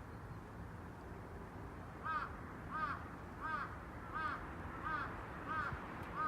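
A crow cawing seven times in an even series, about one and a half caws a second, starting about two seconds in, over a steady low background rumble.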